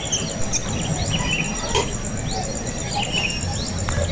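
Short bird chirps and quick sweeping calls, repeated about once a second, over a steady, rapid high insect trill.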